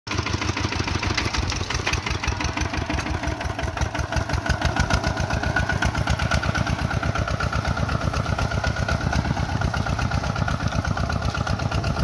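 Kubota walking tractor's single-cylinder diesel engine running steadily with fast, even exhaust beats while it pulls a disc plough through paddy mud.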